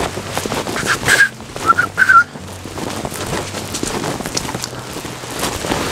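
A few short whistled notes, loud and close, about one to two seconds in, over the steady crunching of footsteps on a dirt trail.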